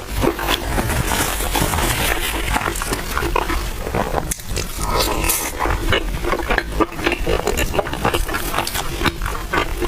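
Close-miked chewing of crispy oil-skin buns: a dense, continuous run of small crunchy clicks and crackles, with a brief pause about four seconds in.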